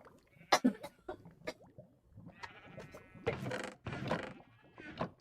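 A girl coughing: a few short, sharp coughs in the first second and a half, then louder, longer voiced coughs from about three seconds in.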